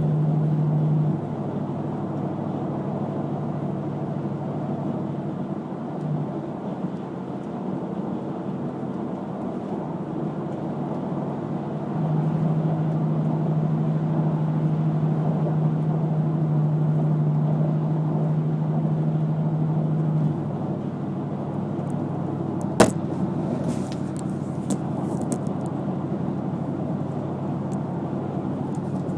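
Steady road and tyre noise of a car driving on a freeway, with a low drone that swells for several seconds in the middle and one sharp click near the end.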